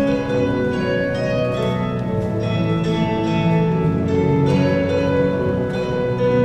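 Instrumental music: a slow melody of plucked-string notes over sustained chords.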